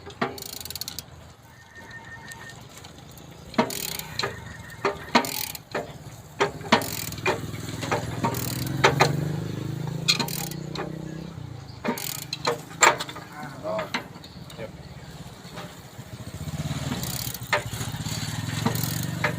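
Irregular metallic clicks and knocks from repair work on a railway crossing barrier's mechanism, over the engines of passing vehicles, which grow louder about halfway through and again near the end.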